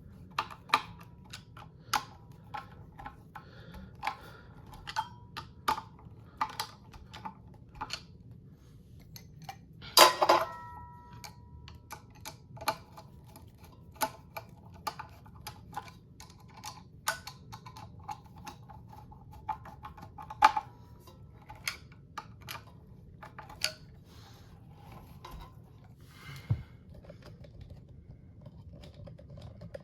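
Irregular clicks and clinks of metal parts and screws being handled while the blade irons are fastened to a ceiling fan motor, with one louder metallic clank about ten seconds in that rings briefly.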